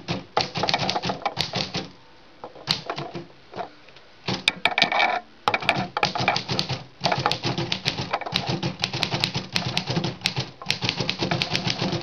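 1936 Royal portable typewriter being typed on quickly: rapid clacking of keys and type bars striking the platen, in fast runs broken by two short pauses in the first few seconds.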